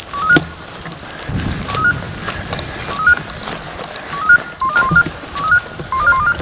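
Hunting-dog beeper collars sounding short three-note rising electronic chirps, at first a few seconds apart, then faster and overlapping at two pitches from about four seconds in, as a second collar joins in. The rapid repeat is typical of a beeper's point mode, signalling a dog standing on point. Low rumbling noise runs underneath.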